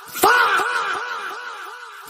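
The "FAHHH" meme sound effect: a man's drawn-out shouted "fahhh!" that starts sharply about a quarter second in, then fades away with a wavering pitch.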